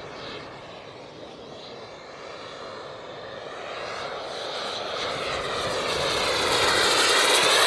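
Radio-controlled model airplane engine whining in flight, growing steadily louder as the plane approaches and passes close, loudest near the end.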